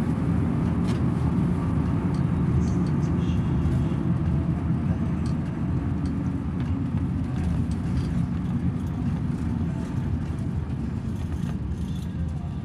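Steady low rumble of engine and tyres inside a moving road vehicle, with a few faint small rattles.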